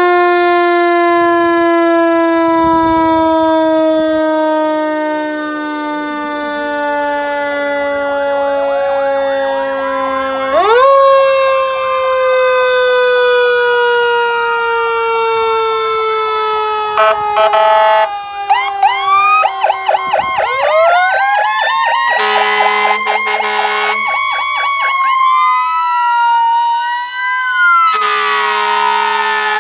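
Federal Q2B mechanical siren coasting down with a slowly falling pitch, spun up again with a sharp rise about a third of the way in, then winding down once more, while other sirens wail and yelp with rising and falling sweeps. Air horn blasts cut in three times: a short one past the middle, a longer one later, and one near the end.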